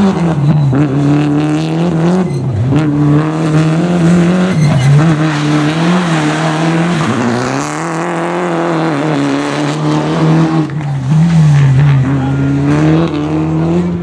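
Citroën DS3 R3 rally car's turbocharged four-cylinder engine revving hard, its pitch climbing and dropping again and again as the car accelerates, changes gear and brakes through tight corners.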